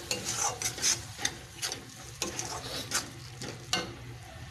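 Metal spatula stirring and scraping a thick tomato-and-spice masala around a metal kadai: a string of irregular scrapes and knocks against the pan.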